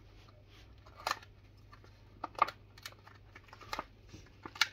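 A small black cardboard paperwork sleeve from a smartphone box being handled and opened by hand: a few short, sharp card-and-paper taps and rustles at uneven intervals, about six in all.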